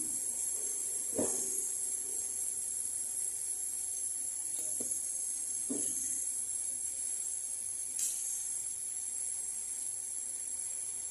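A few faint taps and knocks from small metal work being handled at a jeweller's bench, over a steady high hiss.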